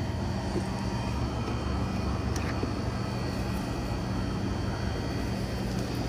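Steady low mechanical drone with a constant hum, unchanging throughout.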